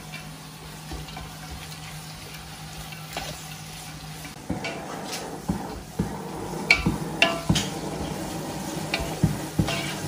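Sliced onions and curry leaves frying in oil and ghee in a large non-stick pot, sizzling while a wooden spatula stirs them. About halfway through the stirring gets louder, with repeated sharp knocks of the spatula against the pot. A low steady hum sits underneath at the start and stops about halfway through.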